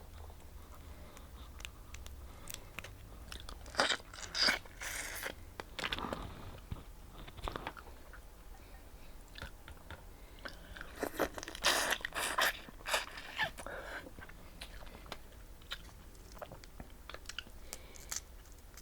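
Blue crab shells being cracked and broken apart, with close-up crunching, biting and chewing. There are scattered clicks throughout, and two louder spells of cracking about four and eleven seconds in.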